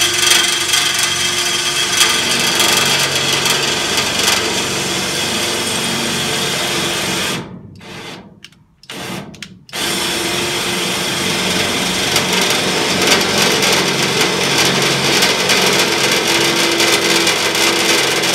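Power drill with a blunt bit grinding slowly into the steel floor panel, stopping about seven seconds in, giving a short burst, then running steadily again. The bit is blunt, so it cuts through only slowly.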